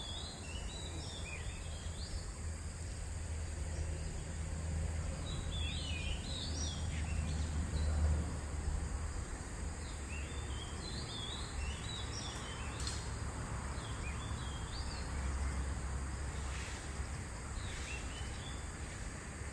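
Outdoor ambience: a songbird sings short warbling phrases several times, over a steady high buzz of insects and a low rumble of wind on the microphone.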